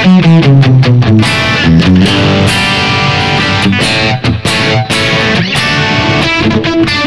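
Squier Affinity Stratocaster played through a Yamaha THR10X amp on a thick, aggressive high-gain distortion setting. A quick descending run of single notes opens, then it goes into fast riffing that breaks off briefly twice around the middle.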